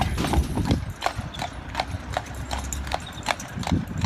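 A pair of Clydesdale horses' hooves clip-clopping on a paved road as they pull a carriage at a steady walk, with even hoofbeats at about three a second.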